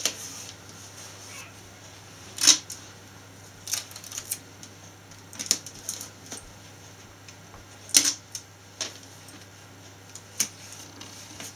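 Irregular sharp taps and crinkles, about seven in all, as card curtains are pressed and stuck with sticky tape inside a wrapping-paper-covered cardboard box. The loudest come about two and a half and eight seconds in.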